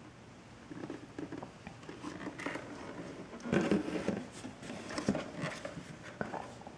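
Handling noise: scattered light knocks and rustles as a plastic furnace draft inducer housing is turned over in the hands and lowered into its cardboard box, with a cluster of bumps and rustles a few seconds in.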